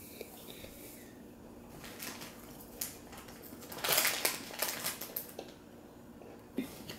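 Small plastic LEGO pieces of a mini-build being handled and adjusted: scattered light clicks and rattles, with a busier run of clicking about four seconds in.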